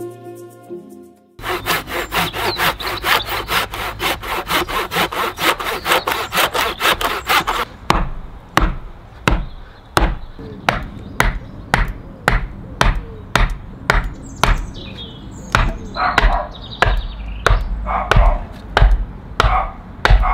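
Handsaw cutting through a thick tree stump, rapid back-and-forth strokes for several seconds, then slower strokes about two a second. Soft music fades out about a second in, before the sawing starts.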